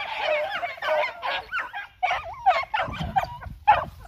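A pack of beagles baying as they run a rabbit's scent trail. Many voices overlap at first, then they break into separate loud bays about two seconds in.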